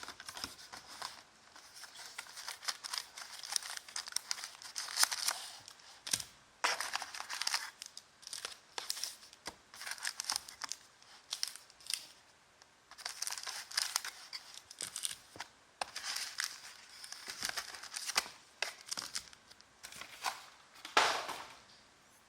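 Plastic wrapping crinkling and tearing in many short, irregular bursts as a Prestige basketball trading-card box and its packs are opened by hand, with a longer, louder tear near the end.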